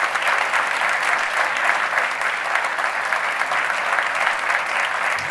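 Audience applauding steadily, the dense clapping of a large seated crowd.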